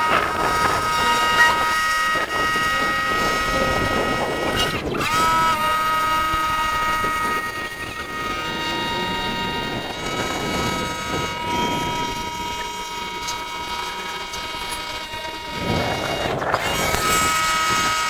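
Sandblasting gun blasting grit at a motorcycle engine's cases: a steady hiss with a high machine whine underneath, a brief break about five seconds in, and a sudden stop at the end.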